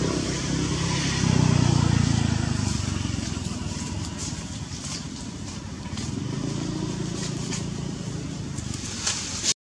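Low engine rumble of passing motor vehicles, louder about a second in and again around six seconds in, with light crackling rustles of dry leaves through the second half.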